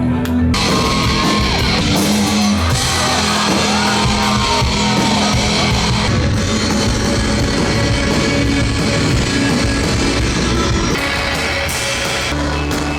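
Loud rock music with distorted electric guitar and drums, a voice singing and yelling over it. It comes in abruptly about half a second in, replacing a quieter beat.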